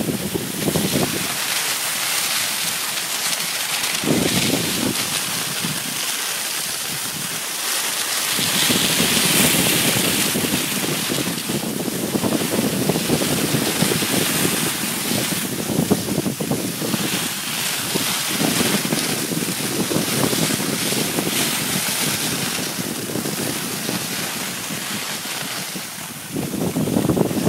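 Cross-country skis hissing and scraping over snow on a downhill run, with wind buffeting the microphone.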